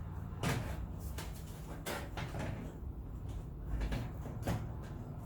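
A Corsair power supply being handled and set into the bottom of a PC case: a series of irregular clunks and knocks, about five over a few seconds.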